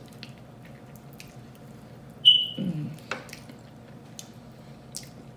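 Wet mouth clicks and lip-smacking of someone eating close to the microphone, with one short voiced sound a little over two seconds in.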